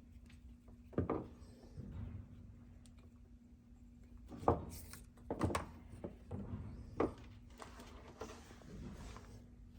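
A few scattered knocks and clunks, then a short scraping rustle near the end, from car parts and hand tools being handled during an installation, over a faint steady hum.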